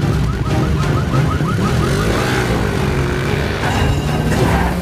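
Chase-scene sound mix: motorcycle and car engines revving under a film score. For about the first second and a half a car alarm sounds a rapid string of short rising chirps, about six a second.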